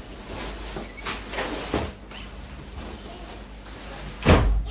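Large cardboard speaker box being handled and pulled up off the speaker, with scraping and rubbing noises and one loud thump near the end.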